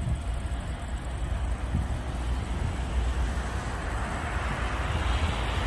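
Airbus A320neo jet engines at takeoff power: a steady rushing noise with a deep rumble, growing a little louder near the end.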